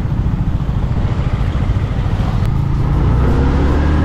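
Motorcycle engine running as the bike is ridden along a road, heard as a dense low rumble.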